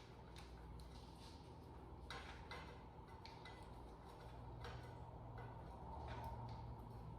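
Faint, irregular clicks and taps of hand tools and metal parts as a fuel line is clamped and the truck's fuel pump is worked loose, over a low steady hum.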